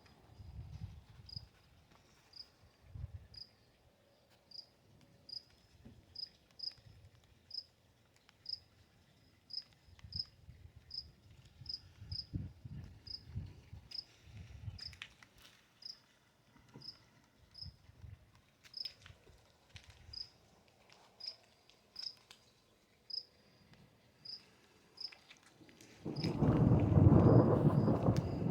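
A cricket chirping steadily, a short high chirp a little more than once a second, over faint intermittent low rumbles. Near the end a much louder low rumble sets in.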